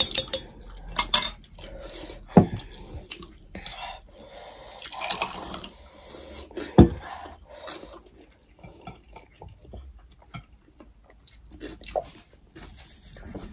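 Close wet mouth sounds of eating by hand: lip smacking and chewing, with a few sharp clicks, two of them louder, and a sip from a glass near the end.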